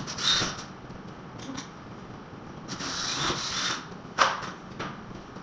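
Rough scraping strokes with a few sharp knocks from hand tools working on a classroom wall under repair: one short scrape at the start, a longer one about three seconds in, and a knock just after four seconds.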